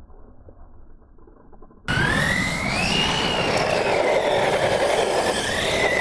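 Electric Losi LMT RC monster truck running on a 3S battery: faint and muffled for the first two seconds, then close and loud. Its motor and gear whine rises in pitch as it accelerates, eases down and holds, over the hiss of tyres scrubbing on pavement.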